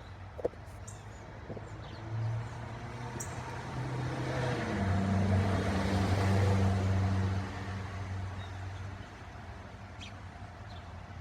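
A car passing by: low engine hum and tyre noise that build, peak about halfway through and then fade away. A single sharp click comes about half a second in.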